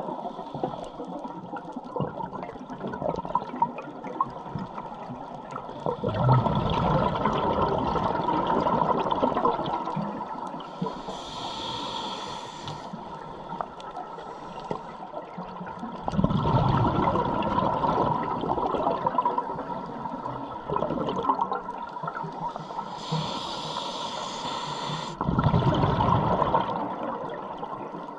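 Scuba diver breathing through a regulator underwater. There are three long exhalations of rumbling, gurgling bubbles, roughly ten seconds apart. Between them come hissing inhalations through the demand valve.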